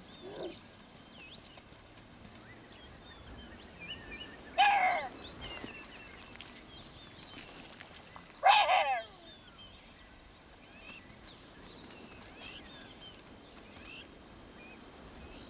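Two short, high animal calls about four seconds apart, each with a curving, falling pitch, over faint bird chirps and outdoor ambience.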